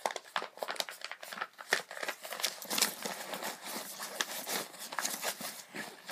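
Crinkling and rustling as an item is handled and pushed into a backpack, in quick, irregular crackles.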